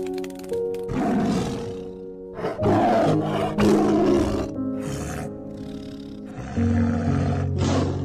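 A tiger growling and snarling in a string of short, rough bursts over soft sustained music.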